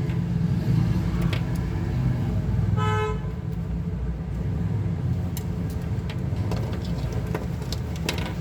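A steady low hum with scattered light clicks, and a single short vehicle horn toot about three seconds in.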